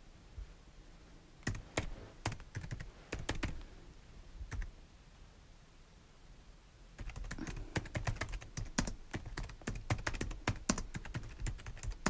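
Typing on a computer keyboard. A short run of keystrokes comes about a second and a half in and a single click a little later, then after a pause a quicker, steady run of typing starts about seven seconds in.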